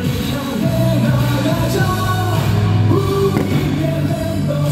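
Music with singing over a rock beat: a medley of SSG Landers team cheer songs.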